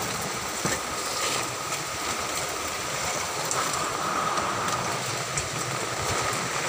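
Heavy typhoon rain falling: a steady hiss with scattered small clicks of drops.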